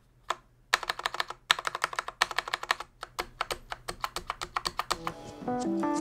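Backspace keycap pressed rapidly on a stock, unlubed Cherry plate-mounted stabilizer with no switch beneath it: a fast clatter of plastic clicks, about ten a second, for some four seconds. Background music comes up near the end.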